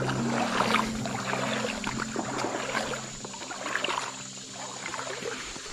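Creek water splashing and sloshing in irregular bursts as a hooked smallmouth bass thrashes near the surface during the fight.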